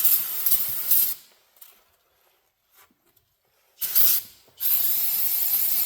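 Aerosol brake cleaner sprayed in three hissing bursts: about a second at the start, a short burst near the middle, and a longer one near the end. It is washing spilled gear oil off the rear differential, where the pinion seal is leaking.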